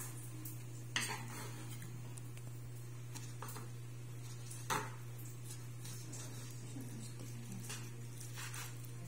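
Knife and fork cutting grilled chicken on a wooden cutting board: scattered clicks and scrapes of the metal against the board, with two sharper clinks, about a second in and near the middle. A steady low hum runs underneath.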